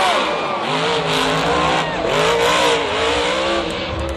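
Monster truck's supercharged engine revving in repeated rises and falls as the truck flips through the air and comes down on its side, over steady crowd noise.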